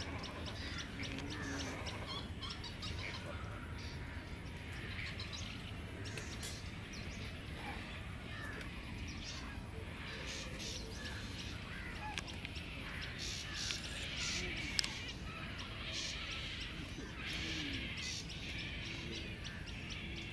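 A chorus of wild birds calling and chirping, many short calls coming irregularly and overlapping, over a steady low rumble. A single sharp click stands out about three quarters of the way through.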